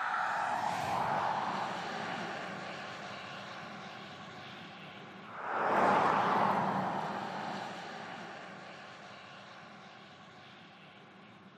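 Audi e-tron Sportback electric car passing at speed: a rush of tyre and wind noise fading away at the start, then swelling sharply again about five and a half seconds in and dying away slowly, with a faint steady hum underneath.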